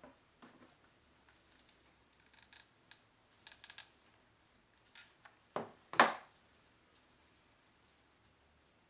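Light clicks and rustles of a hot glue gun and fabric-covered lampshade being handled, then two sharp knocks about five and a half and six seconds in, the second the loudest: the glue gun being set down on the wooden tabletop.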